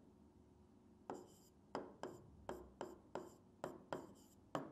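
A pen writing, faint: a string of about nine short taps and strokes against the writing surface, spread over the last three and a half seconds.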